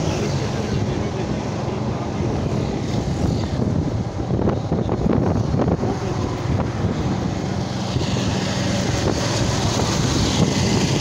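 Motorcycle engine running at road speed with a steady low hum, mixed with wind rushing over the microphone.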